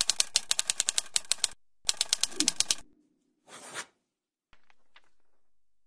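Typewriter keys clacking in two quick runs, about nine strikes a second, stopping about three seconds in. Then a short rasp and a few faint clicks.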